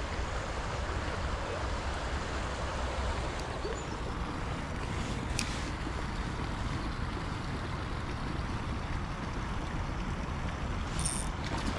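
River water flowing steadily, with wind rumbling on the microphone. A brief click comes about five seconds in, and a few quick clicks come near the end.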